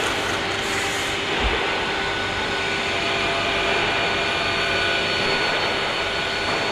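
Steady factory-floor machinery noise: a constant rushing sound with a few faint unchanging tones running through it.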